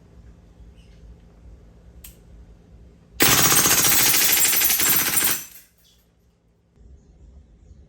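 WE M16A4 gas blowback airsoft rifle firing a full-auto burst of about two seconds, the shots coming too fast to separate. A single click comes about a second before the burst.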